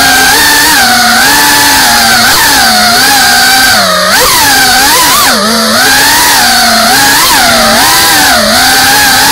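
FPV quadcopter's electric motors whining loudly, heard from the drone's onboard camera. The pitch keeps rising and falling with the throttle, with sharper dips about four and five and a half seconds in.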